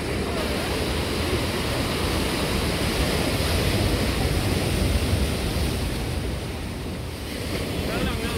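Ocean surf washing and breaking against a rocky shore, with wind buffeting the microphone. It swells a little midway and eases off near the end.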